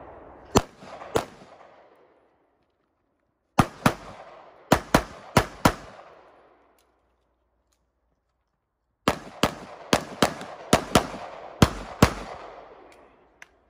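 Pistol shots fired in quick pairs during a practical-shooting course of fire. There are two shots near the start, then about six more a few seconds later, then a final string of about eight, each shot with an echoing tail.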